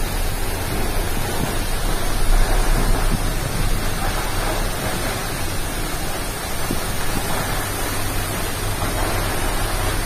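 Tall waterfall plunging onto rocks close by: a steady, even rush of falling water.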